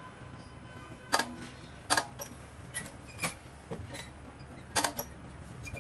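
Sharp plastic-and-metal clicks and clacks from a 1/14-scale RC dump truck's tipper body as the bed is lowered, a handful of them irregularly spaced over a faint low hum.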